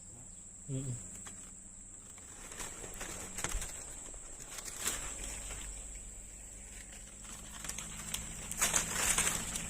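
Outdoor ambience with a steady high-pitched insect drone throughout. There is a brief low call about a second in, and scattered rustling and handling noises that are loudest near the end.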